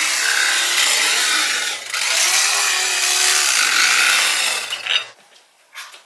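Electric carving knife running and sawing through roast turkey, a steady motor hum under the rasp of the blades, with a short break about two seconds in; it stops about five seconds in.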